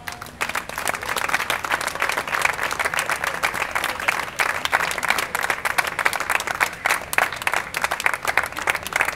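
Audience applauding: dense, even clapping from a small crowd at the end of a sung verse.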